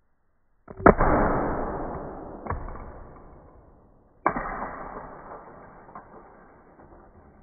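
Two sudden crashes about three and a half seconds apart, each followed by a noise that fades away over a few seconds, with a small click in each fade.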